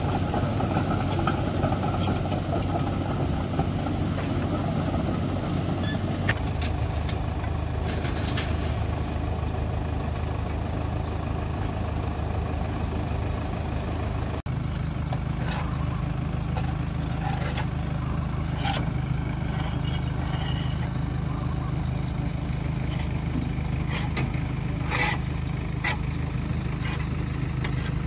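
Diesel engine running: a Komatsu D31P crawler bulldozer's engine as it drives. After a cut about fourteen seconds in, a diesel engine idles steadily, with a few sharp clicks and knocks over it.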